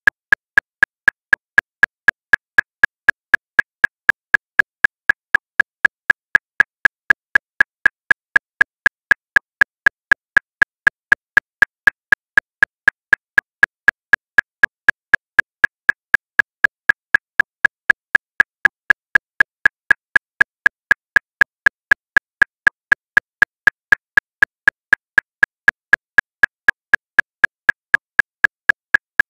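Metronome clicking steadily at 239 beats per minute, about four identical clicks a second.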